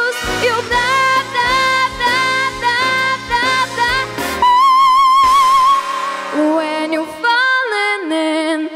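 A girl singing into a microphone over a pop backing track. About four seconds in, the bass of the backing drops out and she holds a long, loud note with vibrato, then sings a falling line.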